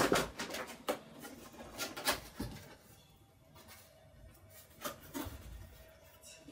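Cardboard box being opened by hand: the top flap is pried up and lifted, with cardboard rubbing and scraping and several sharp clicks.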